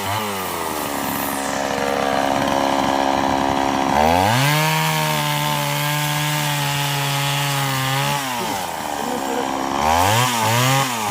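Two-stroke chainsaw engine throttled up hard about four seconds in, held at high revs for about four seconds, then let back down. Near the end it gives two quick revs.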